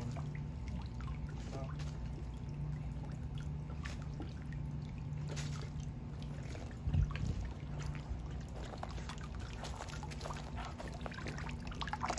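Water from a garden hose trickling and pouring into a plastic kiddie pool, with small splashes as a dog noses at the water, over a steady low hum. One louder thump comes about seven seconds in.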